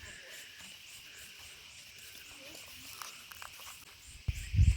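Steady high-pitched chorus of insects, crickets or cicadas, shrilling continuously, with a few faint clicks. Near the end a sudden loud low rumble cuts in.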